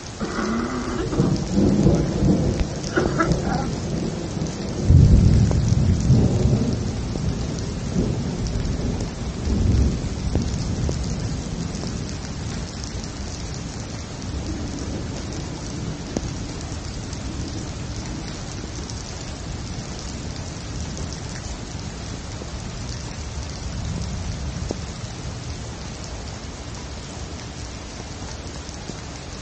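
Thunderstorm: steady heavy rain with a long roll of thunder that starts about a second in, peaks in a deep boom about five seconds in and rumbles away by about ten seconds, leaving the rain alone.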